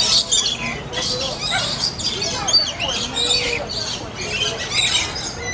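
Lorikeets and lories calling together: a dense, continuous chatter of overlapping high squawks and chirps.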